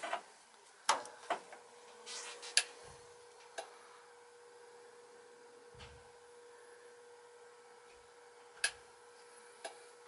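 Scattered light clicks and knocks of handling inside an open gas furnace cabinet, over a faint steady hum that comes in with a click about a second in.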